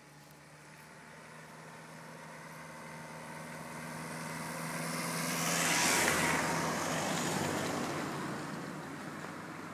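Two cars driving past on a country road: engine and tyre noise grows steadily, peaks as they pass about six seconds in, then fades away.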